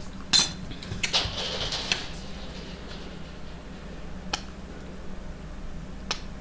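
Paper sheets rustling and a few sharp light clicks as hands handle small paper squares and a thin metal blade on the work board while pressing a polymer clay leaf; the loudest click comes about half a second in, the rustle around one to two seconds in.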